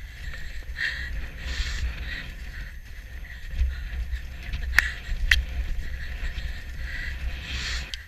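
Wind rumbling over the microphone of a camera mounted on a galloping horse, with the horse's muffled hoofbeats beneath it. Two sharp clicks come about five seconds in.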